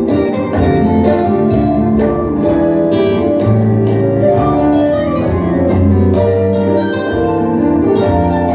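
Background music with held instrumental notes, a bass line and a steady beat.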